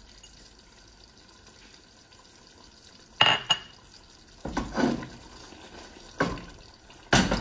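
Stainless steel cooking pot being handled on the stove: a run of sharp metal clanks and knocks starting about three seconds in, four in all, the first with a brief ring.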